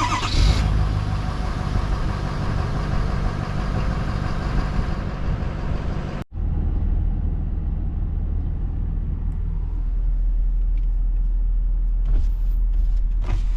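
A motor vehicle running with a steady low rumble, breaking off for an instant about six seconds in before the rumble continues.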